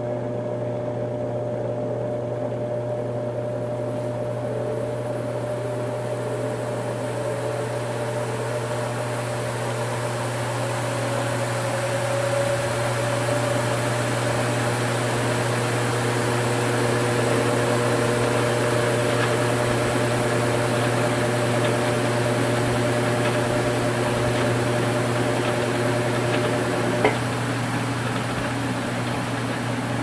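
Electrolux LWI13 washing machine running in its drain stage: a steady motor and pump hum with a faint whine over a growing whoosh that gets louder through the first half. About 27 s in there is a sharp click and the whine cuts off while the hum carries on.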